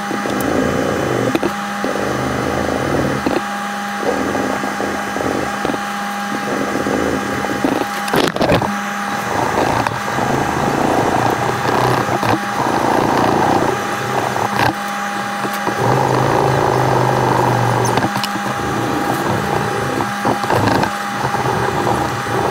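A knife being hand-sanded with sandpaper: a run of rasping back-and-forth strokes that start and stop every second or so, over a steady background hum.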